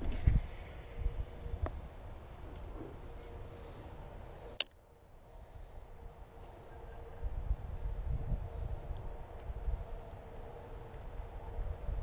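Insects chirring in a steady, high, even drone, with one sharp click about four and a half seconds in and low rumbling on the microphone off and on.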